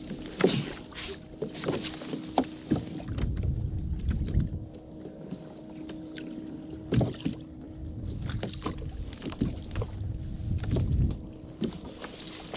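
Water lapping and slapping against a plastic fishing kayak's hull, with scattered sharp knocks and clicks from the boat and gear, over a faint steady hum.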